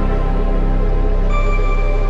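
Background music: sustained synth chords over a deep, steady bass drone, with a higher held note coming in about a second and a half in.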